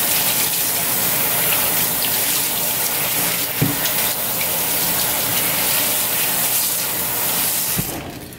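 Kitchen faucet running onto a raw beef brisket being rinsed by hand in a stainless steel sink, water splashing off the meat. There is a brief knock about three and a half seconds in, and the water stops near the end.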